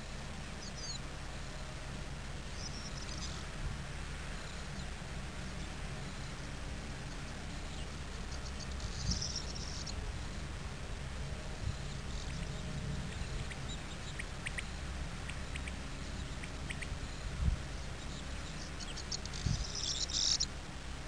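Common whitethroat giving short song phrases several seconds apart, the loudest near the end, with a few sharp ticking notes in between, over a steady low background rumble.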